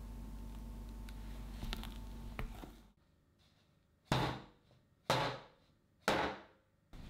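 A square metal cake pan holding a freshly baked sponge cake is knocked down onto a wooden board three times, about a second apart, each a sharp knock that dies away quickly.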